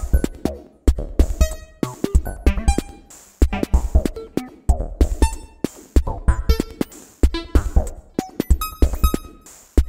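Electronic music with a drum-machine beat: deep kick hits in a repeating pattern under short synth blips, clicks and bright noisy hits.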